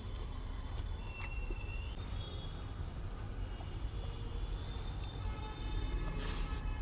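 Low steady rumble of street traffic heard from inside a truck cab, with a few faint clicks and a short hiss about six seconds in.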